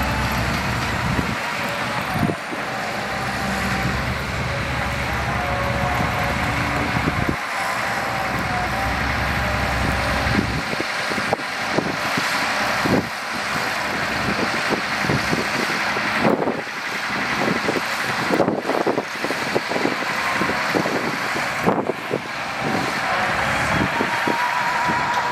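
Heavy dump truck's diesel engine running while the raised bed tips its load of soil, with a run of knocks and clatters in the middle.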